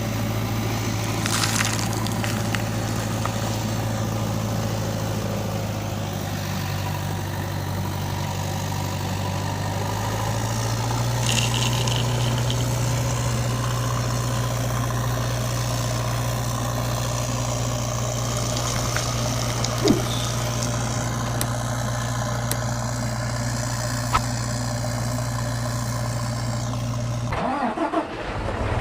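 Tractor engine running steadily with a low, even hum, its pitch stepping up slightly about ten seconds in; a short break comes near the end.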